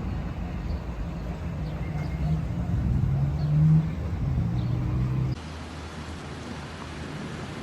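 A motor vehicle engine running, its pitch shifting up and down, cut off abruptly about five seconds in by a steady, quieter hiss like rain.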